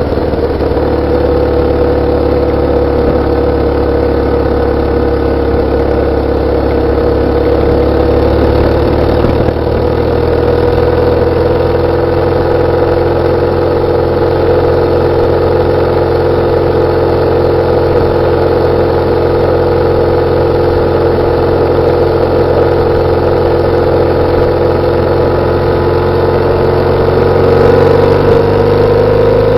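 BMW R850R's boxer twin engine and exhaust, picked up from just above the exhaust, running steadily at a constant road speed, with the pitch rising a little near the end.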